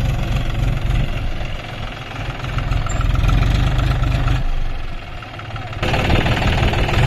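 John Deere 5050D tractor's three-cylinder diesel engine running as it moves off pulling a loaded trailer. The engine swells a couple of seconds in, eases briefly, then is louder and fuller near the end when heard up close beside the tractor.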